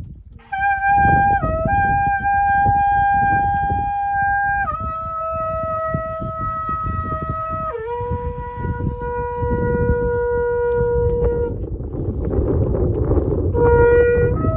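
Shofar blown in long held blasts that step down in pitch twice, with a short waver between notes. It stops for about two seconds, and a new blast starts near the end, rising in pitch, over a low rumbling noise underneath.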